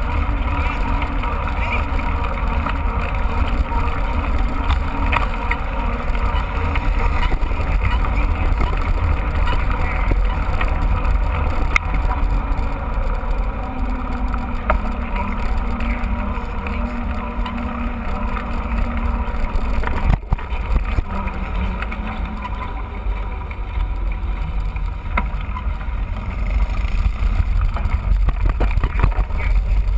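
Wind rumbling steadily on the microphone of a camera on a moving mountain bike, with the noise of the ride underneath and a few sharp knocks.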